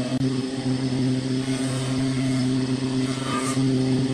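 A steady motor hum holding one pitch throughout.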